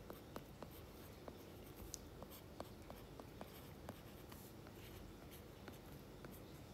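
A stylus writing on a tablet's glass screen: faint, irregular taps and clicks of the pen tip, a few a second, as letters are handwritten.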